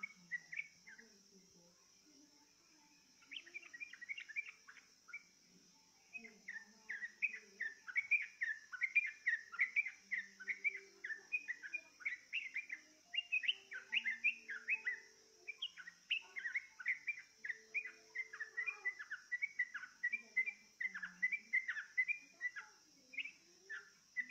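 Yellow-vented bulbul (trucukan) song used as a lure recording to get a caged trucukan to sing along. It is fast runs of short bubbly chirping notes, with a pause of about two seconds near the start and near-continuous song after that.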